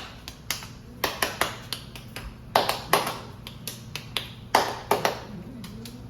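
A dozen or more sharp hand claps and taps in an uneven rhythm, a pattern for a child to copy.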